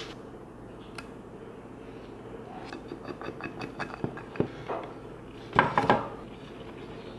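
Pine boards and tools handled on a wooden workbench: a single click about a second in, a run of light taps and clicks a few seconds in, and a louder clatter near the end.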